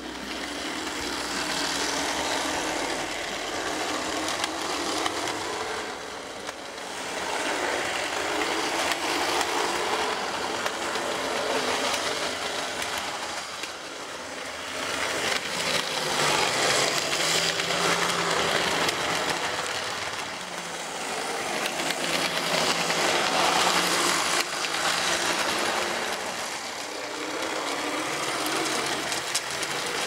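H0-scale model train running on the layout: a Lima BR E151 electric locomotive's motor and its plastic-wheeled wagons rolling and rattling over the track. The noise swells and fades every few seconds as the train circles past.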